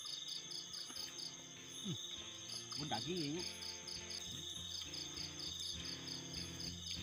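Night insects chirping in a rapid, steady pulse of about five chirps a second over a continuous high trill, with low voices talking beneath.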